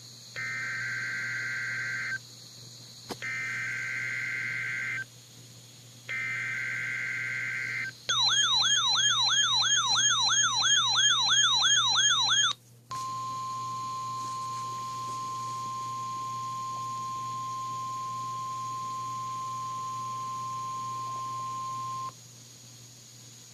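NOAA Weather Radio Required Weekly Test alert: three short bursts of two-tone SAME digital header data, a fast warbling alert siren from the RadioShack weather radio receiver as it activates, then the steady 1050 Hz warning alarm tone held for about nine seconds before cutting off. It is the sequence that sets off the receiver ahead of the spoken test message.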